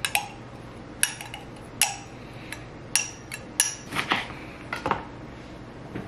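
A spoon stirring salad dressing and Dijon mustard in a cup, clinking sharply against the cup's sides about a dozen times at uneven intervals.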